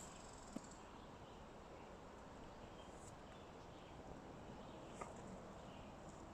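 Quiet woodland background with faint short bird chirps and three isolated soft clicks.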